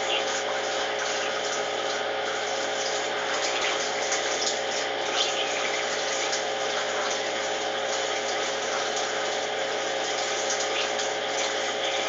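Consul washing machine in its intermediate spin, the drain pump running steadily as water drains through the hose, with a steady hum and rushing water. Light irregular knocks come through, the drain hose knocking.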